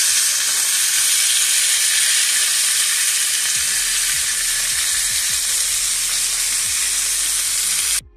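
Three seasoned pork chops sizzling steadily as they pan-fry in a nonstick skillet; the sizzle cuts out briefly near the end.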